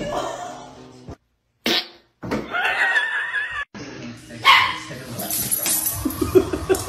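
Dogs barking and yipping in short bursts, with people talking.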